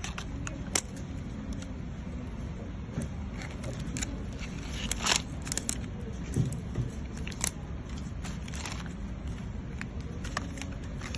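Scattered clicks, taps and crinkles of a phone box and its packaging being handled and opened, over a steady low background hum.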